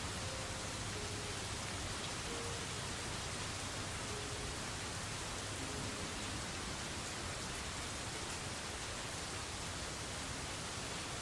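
Steady sound of rain, an even hiss with no breaks.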